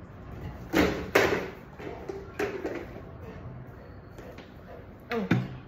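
A Labrador retriever jumping down from a bed onto the floor: two loud thumps about a second in, followed by softer knocks as it comes over, and another short knock near the end.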